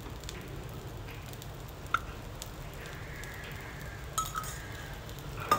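A metal spoon clinks against a cast-iron paniyaram pan: once about two seconds in, a few times a little after four seconds, and most sharply near the end. Under the clinks, batter fries with a faint, steady sizzle in the pan's oiled wells.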